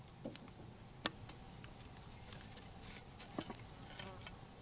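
A few light clicks and scrapes as a stick works the coals on the lid of a cast iron Dutch oven, over a quiet outdoor background; the sharpest click comes about a second in, another after about three and a half seconds.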